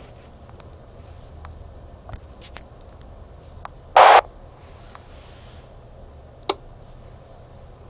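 Yaesu VX-150 VHF handheld radio being operated: several sharp clicks and one short, loud burst of noise about four seconds in, over a low steady hum.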